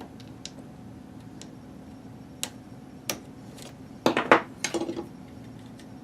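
Small metal parts and tools handled during hand reassembly of a router's switch: a few light clicks, then a short flurry of louder metallic clinks and rattles about four seconds in.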